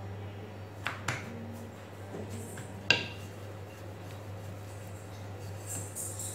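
A wooden rolling pin handled on a granite countertop while stuffed aloo paratha dough is rolled out: a few light knocks, the loudest about three seconds in. A steady low hum runs underneath.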